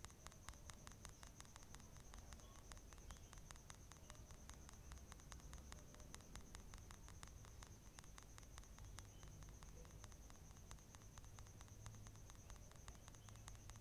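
Near silence: faint room tone with a thin, steady high whine and faint, evenly spaced ticks at about five a second.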